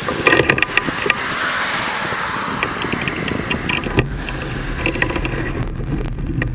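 A car drives past, its tyre and engine noise swelling and fading over about three seconds, with a few sharp clicks near the start. A steady low rumble follows from about four seconds in.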